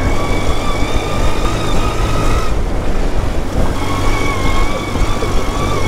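Off-road buggy's engine running under throttle with a steady high whine, over a heavy rumble of wind and rough ground. The whine drops out about two and a half seconds in and comes back about a second later.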